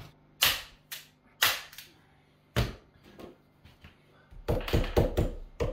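Sharp fastening strikes as a door seal strip is tacked along a door jamb: three single hits about a second apart, then a quick run of taps near the end.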